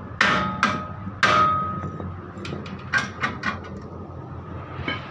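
Hammer striking metal: three loud ringing blows in the first second and a half, then a quicker run of lighter strikes about three seconds in.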